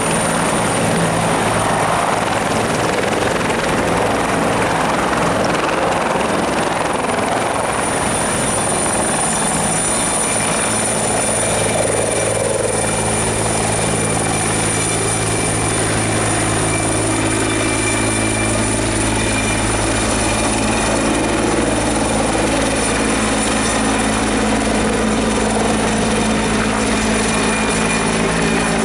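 Bell 412 helicopter lifting off and hovering close by: steady rotor noise from its four-blade main rotor under the constant high whine of its twin turboshaft engines. The deep rotor sound grows heavier about halfway through as it climbs overhead.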